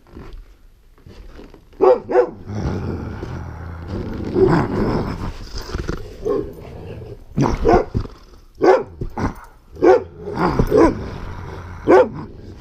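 Dog barking repeatedly in short, loud barks, with a longer stretch of growling between the first few barks.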